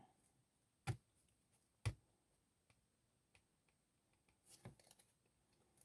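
Mostly near silence, broken by two light taps about a second apart and a few faint ticks near the end: tarot cards being handled on a table.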